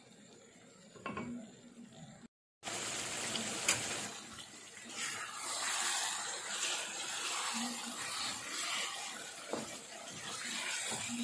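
Beef-rib rendang cooking in a frying pan and stirred with a wooden spatula: quiet with a single knock at first, then, after a brief cut-out, a steady sizzle with scraping. The sizzle is the meat frying in its own oil once the coconut milk has cooked dry.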